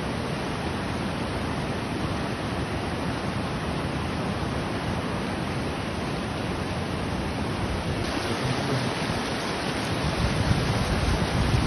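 Munzur river in flood, overflowing its banks: a steady rush of fast-flowing water. Low buffeting of wind on the microphone grows stronger near the end.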